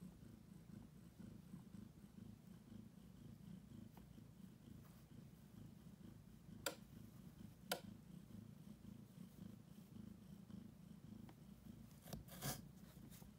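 A heavily pregnant tabby cat, close to giving birth, purring steadily and hard as a low continuous rumble. A few short clicks cut in twice about halfway through and again near the end.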